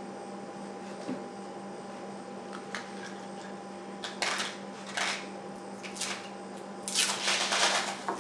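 Soft handling clicks and rustles as a metal pellet tin is turned in the hands, then a denser crinkling rustle near the end as its red tape seal strip is peeled off, over a steady electrical hum.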